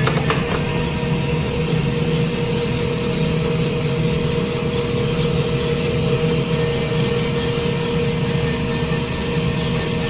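Electric vegetable slicer running: a steady motor hum and whir with a constant pitch.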